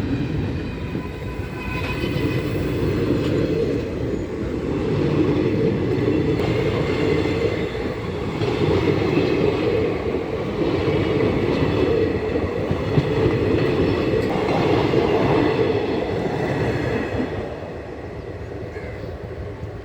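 Train passing, its wheels running steadily on the rails, dying away a couple of seconds before the end.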